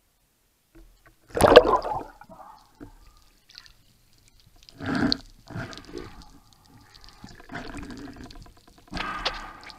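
Water splashing as a freediver ducks under the surface, loudest about a second in, then muffled underwater rushing and bubbling with shorter surges near the middle and the end.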